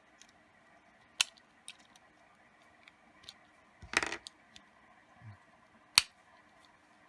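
Scattered small metal clicks from a Victorinox Champion Swiss Army knife as its stiff Phillips screwdriver is worked out of the handle, with a louder cluster of clicks about four seconds in and one sharp snap about six seconds in.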